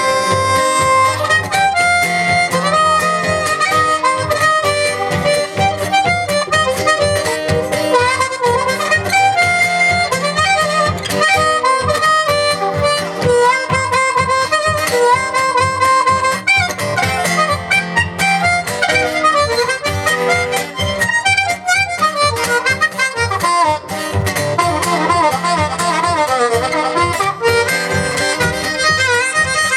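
Instrumental break in a live song: a harmonica plays a bending melody over strummed acoustic guitar.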